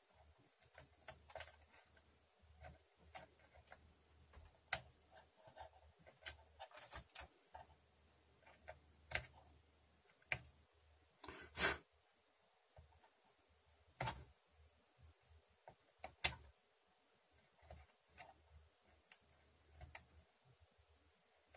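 Faint, scattered small clicks and taps from close-up handwork with a scalpel at a computer's CPU socket, irregular and a few seconds apart, over a low hum.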